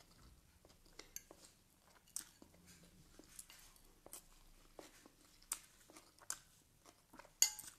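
A person chewing a forkful of crunchy pickled onion rings: soft, irregular crunches and small mouth clicks, with one sharper click near the end.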